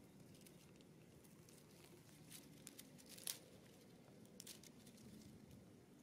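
Faint crackling and rustling of grass stalks and dry leaves as a baby monkey grabs and pulls at them, in two short clusters of clicks with a sharp snap about three seconds in.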